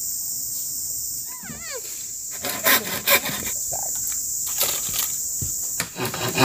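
Steady high-pitched drone of forest insects. A short warbling call falls in pitch about a second and a half in, and from about two and a half seconds on come irregular knocks and rubbing of wood or bamboo being worked.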